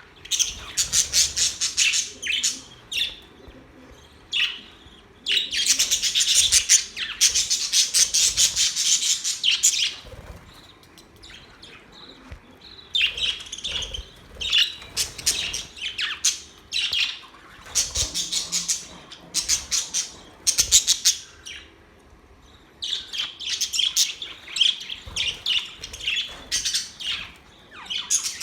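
Budgerigars chirping and singing in rapid runs of high chirps, with short quieter pauses between the busiest stretches.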